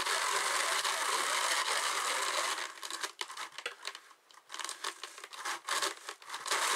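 Hand-cranked drum carder turning, its wire carding teeth brushing through wool and nylon sparkle fibre as it is fed in. A steady hiss for the first couple of seconds, then uneven with light clicks and brief pauses.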